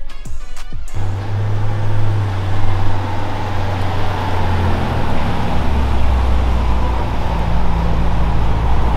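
Bentley Continental convertible's engine running as the car drives up and pulls to a stop. It starts about a second in and drops to a lower, steady hum about five seconds in.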